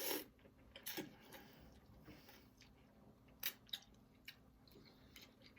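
A person chewing food close to the microphone, quietly, with a few short sharp mouth clicks; the loudest comes about three and a half seconds in.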